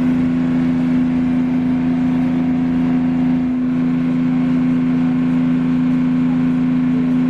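Passenger ferry's engine running steadily while the boat is under way: a loud, even drone heard from aboard.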